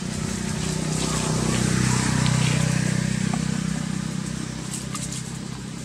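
A motor vehicle passing by: a steady engine hum that grows to its loudest about two seconds in, then fades away.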